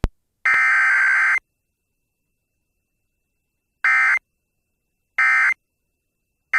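Emergency Alert System SAME data tones, the two-pitch digital warble of an EAS encoder, during a Required Weekly Test. One header burst about a second long comes first; after a pause of about two and a half seconds come short end-of-message bursts about a second and a half apart, a third one starting near the end, with silence between them.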